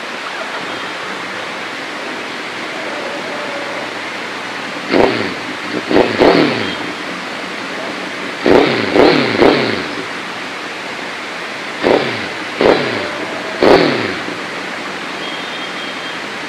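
Suzuki Hayabusa inline-four sport-bike engine idling, then revved in quick throttle blips. There are about nine blips in three groups of three, starting about five, eight and twelve seconds in, each shooting up and falling straight back to idle.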